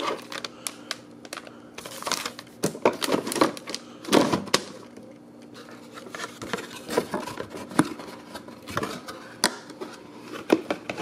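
Cardboard packaging and a plastic-wrapped cable modem being handled: irregular clicks, taps and rustles as the modem is set back into its box and the box lid is brought over it.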